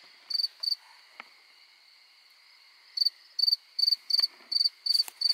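Crickets chirping at night: two short high-pitched chirps, a pause of about two seconds, then a steady run of chirps about two to three a second from about three seconds in. A fainter steady insect trill sits lower beneath them.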